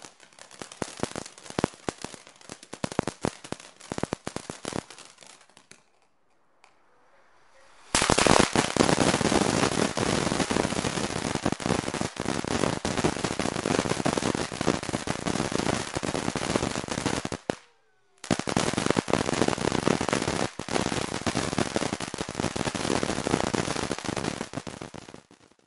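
Ground fountain fireworks spraying sparks with dense, rapid crackling pops. The first dies away about five seconds in. After a short quiet, another starts suddenly about eight seconds in and crackles steadily and loudly, with a brief break near eighteen seconds.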